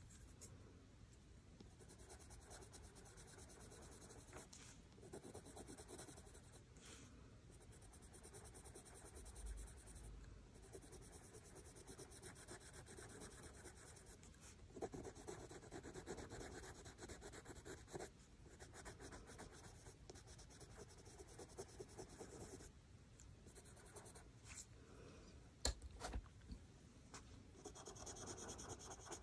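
Faint scratching of a Prismacolor coloured pencil shading on cartridge paper in continuous strokes, with a couple of light knocks about three-quarters of the way through.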